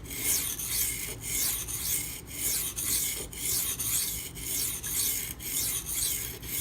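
Maxamet steel knife blade rasping across a freshly conditioned, coarse silicon carbide sharpening stone, in repeated strokes about once a second. The stone's texture is very aggressive and not smooth at all, so each stroke is a harsh, gritty scrape.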